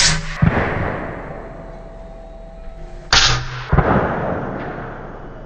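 Two shots from a suppressed Bintac MCAR .457 big-bore rifle about three seconds apart. Each is followed about half a second later by a second sharp report, the bullet striking the target downrange, and then a long fading echo.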